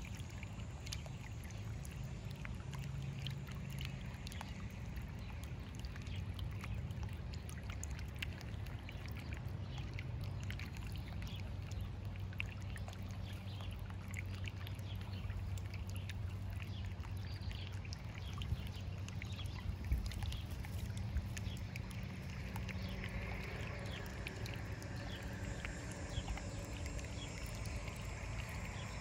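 Small fountain in a stone birdbath bubbling and trickling steadily, full of fine splashes, over a low steady hum.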